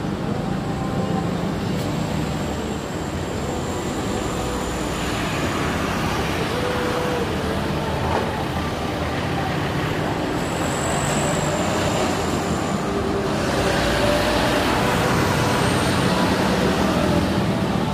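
Steady rumble and hiss of a Boeing 787-8 Dreamliner's jet engines at taxi power, with a faint high whine. It grows a little louder and brighter about two-thirds of the way through as the aircraft swings round to face the listener.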